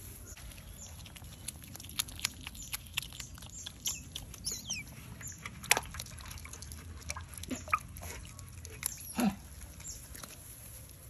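Small animals feeding: scattered sharp clicks and smacks, with a few short squeaks that fall in pitch. The loudest squeak comes about nine seconds in.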